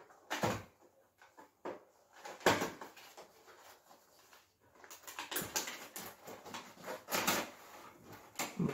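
Cardboard box being opened by hand: scattered scrapes and taps, a sharper knock about two and a half seconds in, then a longer stretch of cardboard rustling and sliding as the packaging is worked open.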